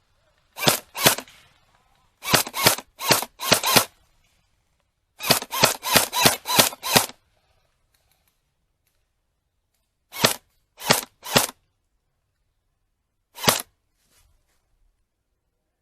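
A series of sharp single gunshots in uneven clusters: two, then six, then six, then three, then one near the end. Between them there is dead silence with no background sound, typical of gunshot sound effects edited onto a silent track.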